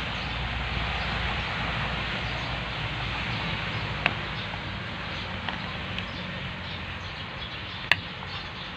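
Steady outdoor background noise with a low hum underneath, and two sharp clicks, about four seconds and about eight seconds in.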